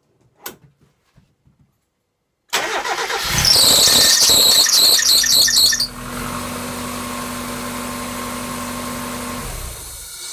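A few light clicks, then a Mazda MX-5 engine cranks and starts with a loud, pulsing high-pitched squeal that lasts about two seconds before it settles into a steady idle. The squeal persists with new belts fitted, and the owner suspects the water pump or power steering pump bearings.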